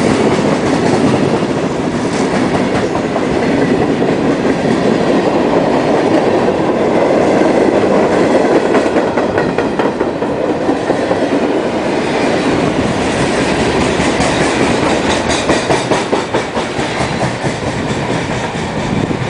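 Freight train rolling past, its cars' wheels clicking over the rail joints.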